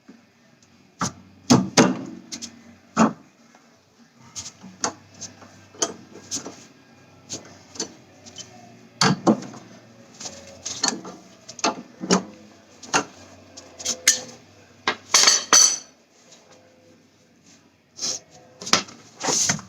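Metal hand tools and car suspension parts clinking and knocking irregularly, with a denser clatter about fifteen seconds in.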